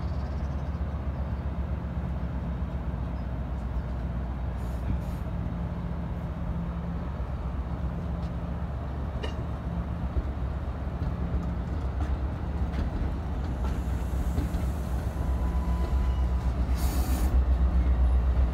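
NJ Transit commuter train of multilevel coaches moving slowly along the station platform, a steady low rumble of locomotive and wheels that grows louder near the end as it picks up. A short hiss of air comes a little before the end.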